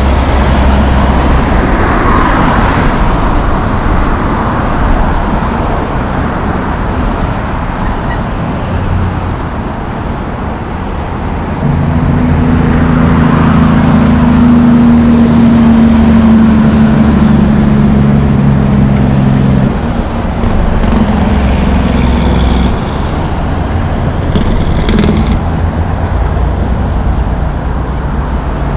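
Highway traffic passing: a semi-truck goes by first, then a loaded logging truck's diesel engine drones steadily for several seconds in the middle as it pulls past with cars, over continuous tyre noise.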